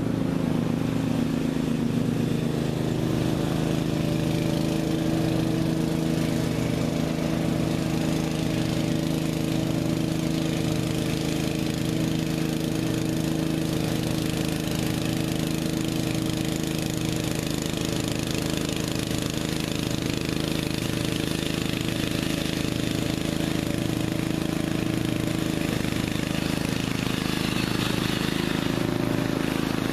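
Bolens riding lawn tractor with a 13.5 hp Briggs & Stratton engine, running steadily while it drives and mows.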